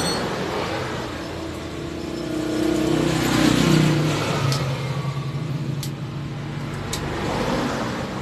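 A motor vehicle engine nearby, its note rising and growing louder about three seconds in, then settling and fading, with a few faint light clicks.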